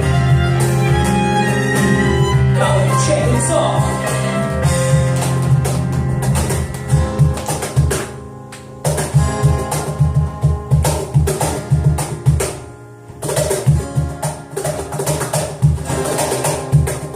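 A band playing an instrumental passage: held chords at first, then drums come in with a steady beat about six seconds in, dropping out briefly twice.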